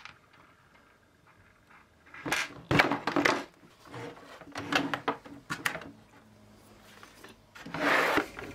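Hard plastic parts of a Karcher K3 pressure washer being handled: knocks and rattles as the motor unit is lifted out of its housing and the plastic shell is moved. They come in three short clusters, starting about two seconds in.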